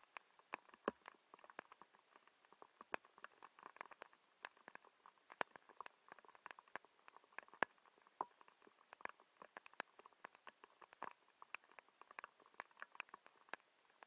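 Faint, irregular ticking and pattering of falling precipitation, several light taps a second landing unevenly, some louder than others.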